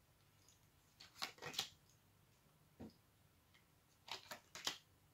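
Tarot cards being drawn from the deck and laid down on the table. There are two short flurries of crisp card snaps and slides, about a second in and about four seconds in, with one soft tap between them.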